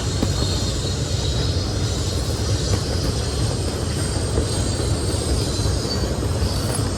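Steady wind buffeting the microphone: a fluttering low rumble under a constant hiss, with no distinct events.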